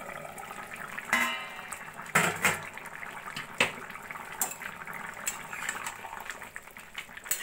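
A steel lid lifted off a kadai with a ringing metal clatter about a second in, over thick potato curry simmering and bubbling. A steel spoon then knocks and scrapes against the pan several times as the curry is stirred.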